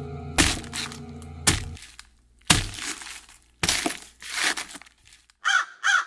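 Four sharp cracks, each about a second apart, then a quick run of short caws near the end.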